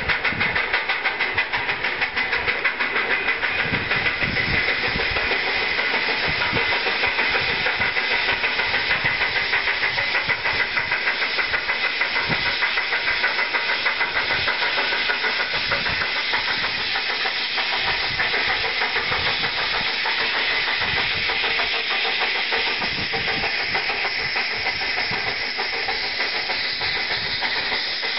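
Black River and Western steam locomotive #60, a 2-8-0, working hard under load: a fast, even beat of exhaust chuffs over a steady hiss.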